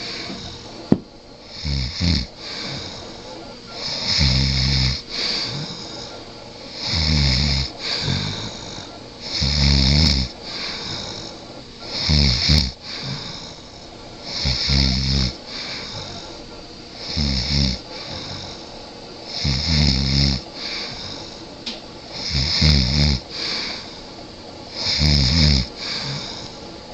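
A person snoring in a steady rhythm: about ten deep, rattling snores, one every two and a half seconds or so.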